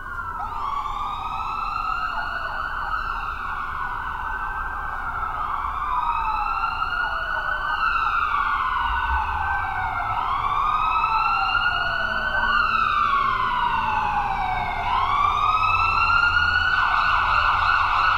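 Ambulance siren wailing, its pitch sweeping slowly up and falling back in repeated cycles every few seconds, growing louder as the ambulance approaches.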